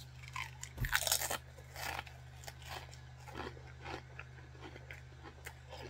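A potato chip bitten into with one loud crunch about a second in, then chewed with a run of smaller, scattered crunches.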